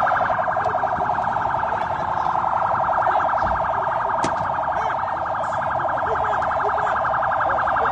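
An electronic alarm sounding continuously: a loud, steady, rapidly pulsing tone.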